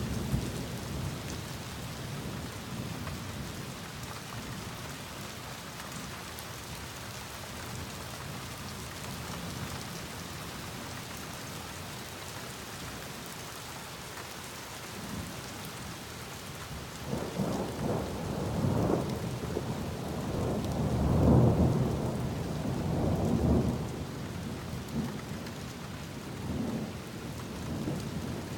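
Steady rain on surfaces with rolling thunder: a rumble dies away in the first few seconds, then a long low peal builds a little over halfway through, peaks a few seconds later and rolls on, with smaller rumbles near the end.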